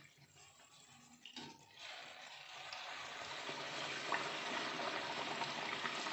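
Puri deep-frying in hot oil in a kadhai, a steady sizzle that sets in about two seconds in and grows gradually louder.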